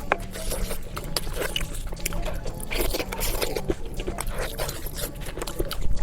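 Close-miked eating sounds: wet chewing and squishing, full of small irregular clicks.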